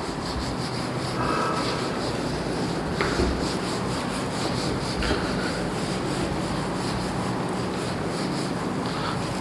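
Whiteboard duster rubbing across a whiteboard, wiping off marker writing in continuous strokes.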